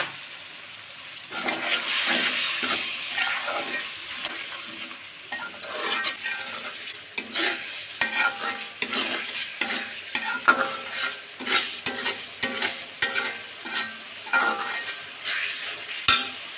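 Metal spatula stirring and scraping a spice paste in a hot pan while the paste sizzles and spatters from a little water just added to fry down the masala. The sizzle swells about a second in, then many quick, irregular scraping strokes follow.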